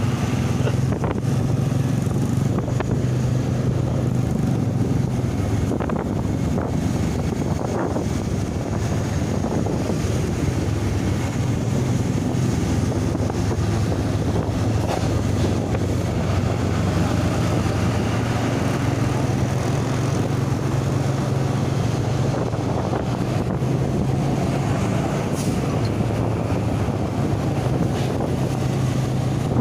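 A vehicle engine running with a steady low drone under road and wind noise on the microphone.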